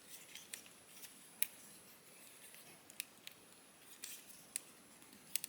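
Faint, scattered clicks and ticks of a snap-fit plastic model kit's joints and parts being moved and handled by hand, about eight short clicks spread over several seconds.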